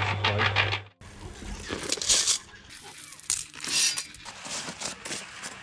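Electric concrete mixer running, its drum tumbling a load of sand and crushed stone with a steady hum and a dense clinking rattle of stones. The mixer is worn, with heavy play in its drum. About a second in the hum stops; after that come scattered clinks and two short scraping hisses.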